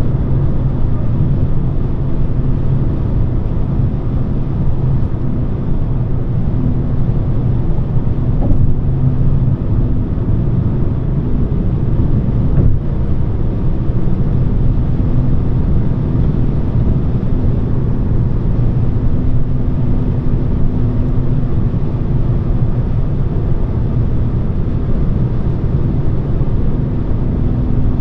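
Steady cruising drone of a Volvo S40 2.4i: its five-cylinder petrol engine hums evenly under tyre and road noise, heard from inside the cabin.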